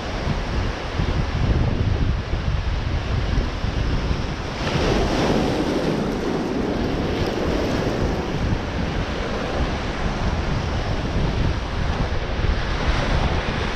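Surf breaking and washing through rounded boulders on a rocky shore, with wind buffeting the microphone as a steady low rumble. About five seconds in, a bigger wave crashes over the rocks and its wash runs on for several seconds.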